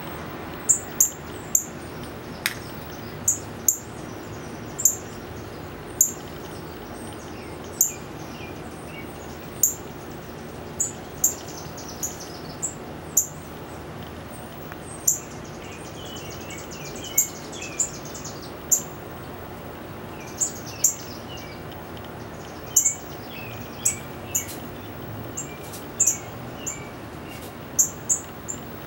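Northern cardinal chip notes: short, sharp, very high calls repeated irregularly, roughly one or two a second. Fainter, lower twittering comes in about midway.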